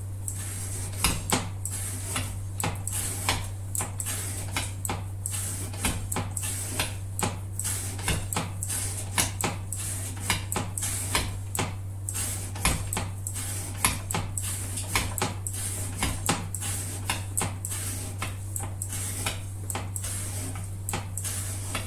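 CPM 125V steel knife blade making cut after cut in an edge-retention test. Each stroke is a short sharp chop, coming about every two-thirds of a second, over a steady low hum.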